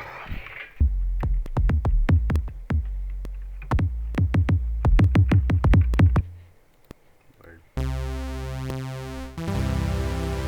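Elektron Digitakt II drum machine playing a beat: a sustained low bass note under quick runs of sharp percussive hits, stopping about six seconds in. After a short pause, a buzzy sustained synth tone with many overtones starts, and its pattern changes about a second and a half later.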